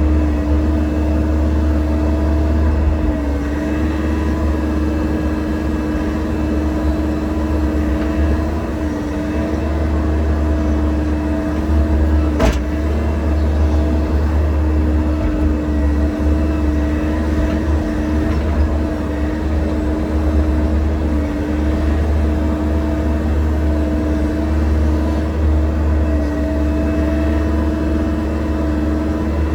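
Excavator's diesel engine running steadily with a constant whine, its pitch sagging slightly now and then as it takes load. There is a single sharp click about halfway through.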